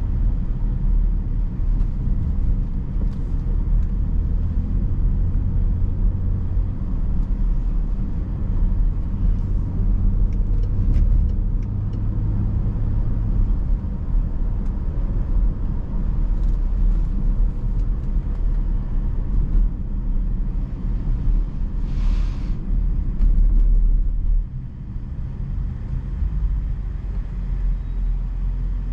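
BMW X5 being driven: a steady low rumble of engine and road noise, with a brief hiss about 22 seconds in and the rumble dropping a little in level shortly after.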